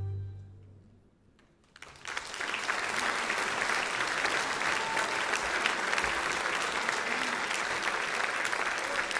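The last held note of an orchestral piece fades out, and about two seconds in a large audience starts applauding, the clapping then keeping up steadily.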